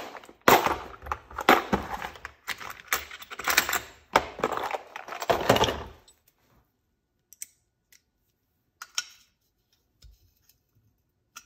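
A hand ratchet clicking in several bursts as it lightly snugs a chainsaw muffler bolt that has only a couple of threads to bite on. Then come a few scattered faint clicks and taps.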